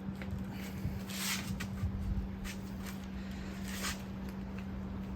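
A rubber sleeve being forced along a reel mower's rear roller, giving several short rubbing and squishing handling noises, over a steady low hum.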